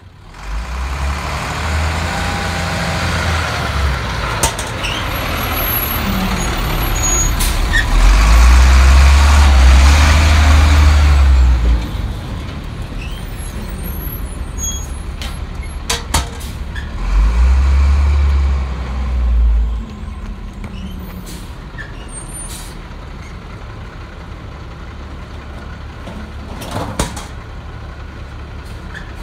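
Leach Alpha rear-load garbage truck running, its engine growing much louder twice for a few seconds each, with several sharp knocks along the way.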